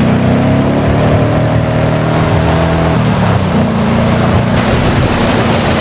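Engine sound effect: a loud, steady running drone with a buzzing pitch. It drops in pitch about three seconds in, steps back up half a second later and cuts off suddenly at the end.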